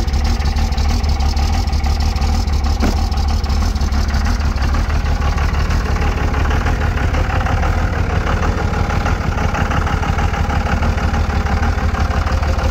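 Second-generation Dodge Ram's Cummins inline-six turbodiesel idling steadily just after a cold start.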